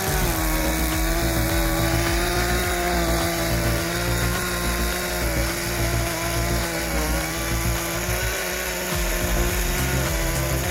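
Background music with a steady beat, over a power saw running with a steady, slightly wavering whine.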